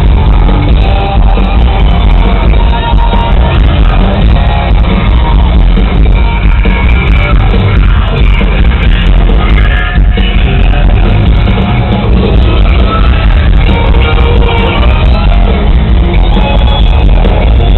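A hard rock band playing live on a concert stage, heard from the audience. The music is loud and dense throughout, with no break.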